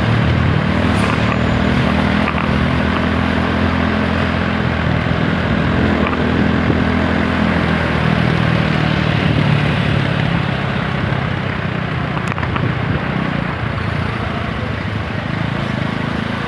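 TVS Apache 160 4V's single-cylinder four-stroke engine running while riding, over a steady rush of wind and road noise. The engine note weakens in the second half.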